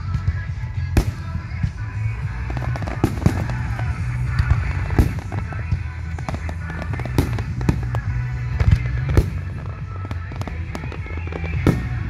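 Aerial fireworks shells bursting in a rapid, irregular string of sharp bangs, over music with a steady heavy bass.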